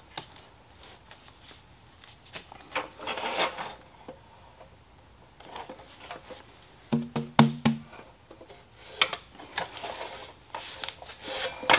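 Handling noises as a roll of vinyl wrap is rubbed and turned on a miter saw's table, with scattered light clicks and knocks as the saw arm is lowered onto it. The saw is not running.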